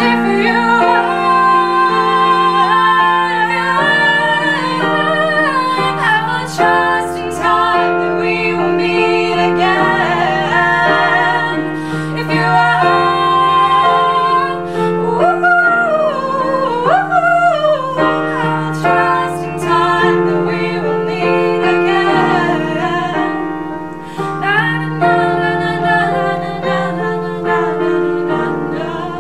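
Two women singing over held chords on a Yamaha electronic keyboard, the chords changing every few seconds beneath the sung melody.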